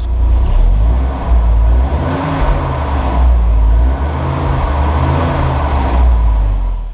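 Volkswagen Golf G60's supercharged 1.8-litre four-cylinder running through its original exhaust, heard at the tailpipes. The revs rise and fall several times.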